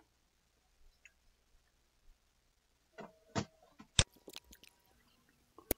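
A few faint computer keyboard and mouse clicks, scattered taps that start about three seconds in, with a sharper click about four seconds in and another near the end.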